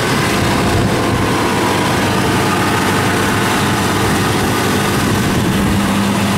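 Kubota DC-70 combine harvester's diesel engine running steadily as the tracked machine drives along.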